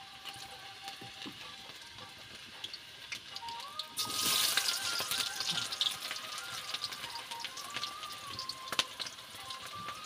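Wood fire crackling with sharp pops under an iron wok of steaming water, with a hiss that grows louder about four seconds in.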